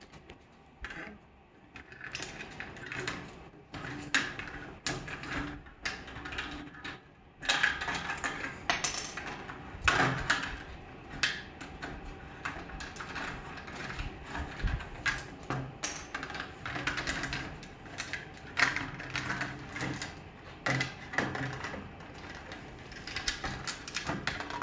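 A cockatoo's beak working at a Lego boat hull, with plastic Lego bricks clicking, snapping and clattering on a wooden table in irregular runs.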